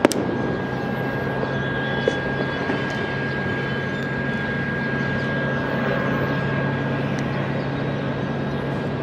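Boeing 777-300ER's GE90 jet engines on final approach: a steady drone with a low hum and a thin high tone over it. A sharp click at the very start, and a smaller one about two seconds in.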